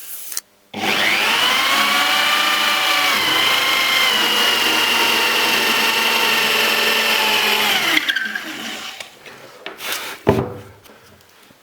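An electric power tool's motor starts about a second in, settles lower in pitch, runs steadily for about seven seconds, then is switched off and winds down. A sharp knock comes near the end.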